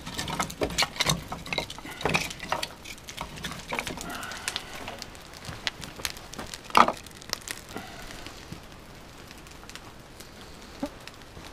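Split wooden kindling sticks clattering and knocking as they are handled and laid onto a newly lit campfire, which crackles; one loud knock about seven seconds in, then fewer, sparser crackles.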